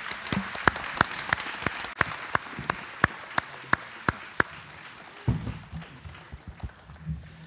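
Audience applauding, with one clapper near the microphone making sharp, even claps about three a second. The applause dies away about five seconds in, and low thumps follow.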